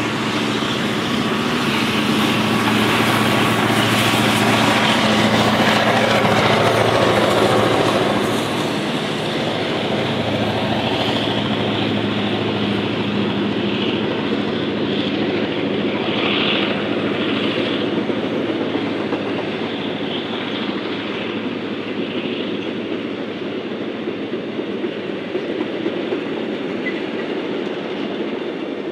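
Two Victorian Railways K-class steam locomotives working a departing train, loudest for the first eight seconds or so as they pass. After that comes a long rake of passenger carriages rolling past with clickety-clack from the wheels over the rail joints, fading slowly as the train draws away.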